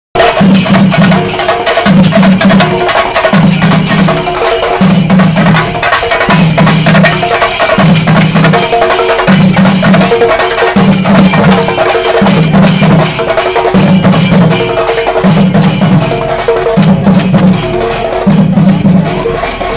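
Chenda drums played in a procession drum ensemble (chenda melam): fast, sharp stick strokes over deep drum beats that return in a pattern about every one and a half seconds.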